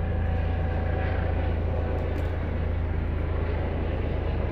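Microwave oven running at full power: a steady low transformer hum with fan noise, and a faint click or two about two seconds in.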